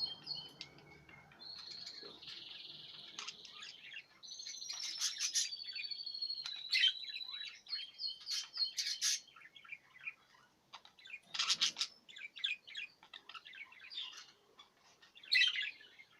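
A pair of budgerigars chirping and chattering in quick, varied calls, with a scratchy stretch early on and a held whistle about four to seven seconds in.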